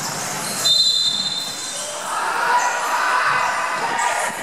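Referee's whistle: one shrill blast of about a second, shortly after the start, followed by voices on the court.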